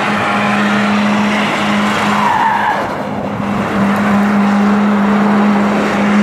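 Volvo 940 doing donuts: the engine is held at high steady revs while the rear tyres spin and screech on asphalt. About three seconds in the revs ease off briefly, then climb back.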